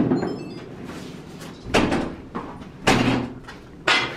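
Heavy metal door being yanked and shoved against its frame, four loud bangs about a second apart: the door is stuck shut and won't open.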